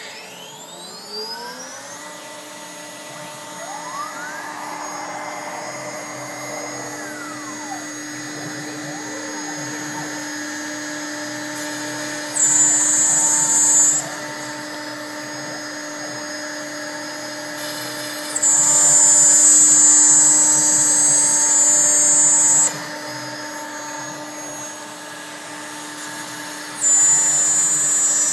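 CAMaster CNC router spindle spinning up with a rising whine, then running at a steady whine, with the machine's drive motors whining up and down in pitch as the gantry moves. Three louder, hissier spells of the bit cutting into plywood come about twelve seconds in, at about eighteen seconds for four seconds, and near the end.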